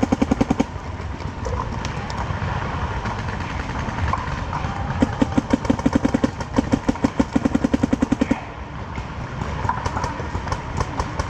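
Paintball marker firing rapid strings of shots, about ten pops a second. A short string ends right at the start, and a longer string of about three seconds begins around five seconds in. Fainter scattered paintball fire pops in between.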